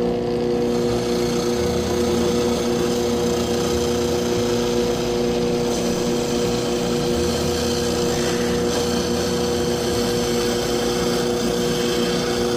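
Drill press running with a Dremel end mill bit, grinding a shallow recess into a carbon fibre plate as the plate is moved around under the cutter: a steady motor hum with the cutter's grinding noise over it.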